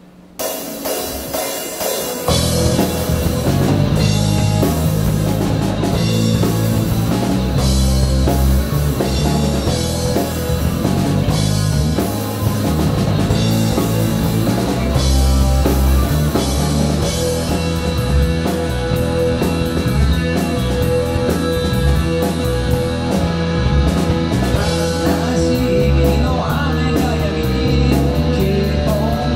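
Live rock band playing on electric guitar, bass guitar and drum kit, opening with a few short hits and coming in together about two seconds in.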